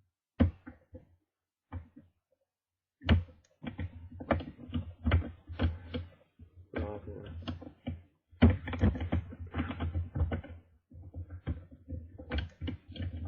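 Hook pick and tension wrench working the pins of a Master Lock No. 1 pin-tumbler padlock: a few separate clicks, then from about three seconds in fast, irregular metallic clicking and scraping, with brief pauses.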